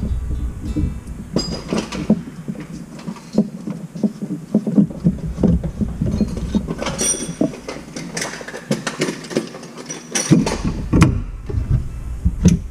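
Irregular metallic clicks and knocks of tongue-and-groove pliers gripping and turning a nut as a kitchen faucet's braided supply line is unscrewed from its copper riser.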